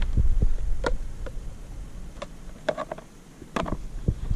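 Scattered light knocks and clicks from handling a landed redfish and gear on a plastic kayak, ready to measure the fish, with a low rumble that fades after about a second and a sharper knock near the end.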